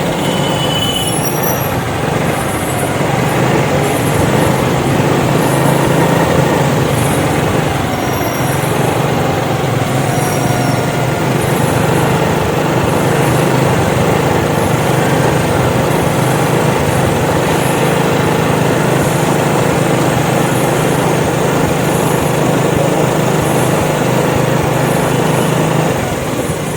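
A vehicle running steadily with a low engine hum and road noise.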